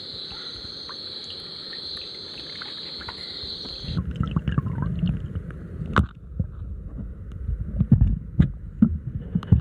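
Night insects trill steadily until about four seconds in, when the microphone goes under the river's surface. The insects cut off, and muffled underwater sloshing with irregular knocks takes over, including one sharp click about six seconds in.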